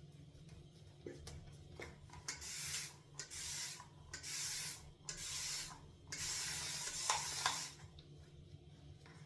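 Semogue 830 boar-bristle shaving brush working thick, dense shaving lather, a hissing rub heard as four short strokes followed by one longer stroke near the end.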